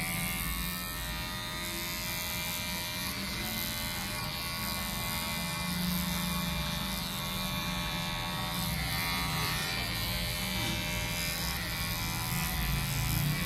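Electric hair clippers fitted with a number 1 guard, starting up and then buzzing steadily while cutting a boy's hair.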